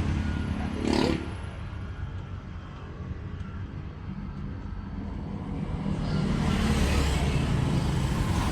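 A motor vehicle's engine running steadily in the background, growing louder near the end. There is a short sharp sound about a second in.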